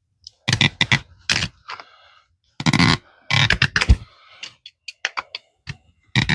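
A PVC slip-fit coupling being handled and worked onto PVC water pipe: several rough plastic scraping strokes in the first few seconds, then a string of light clicks and taps.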